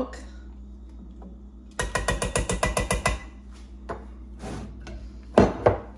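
A spoon scraping and clicking rapidly against a plastic measuring cup for about a second as yogurt is scraped out, followed by a few separate knocks, the loudest near the end.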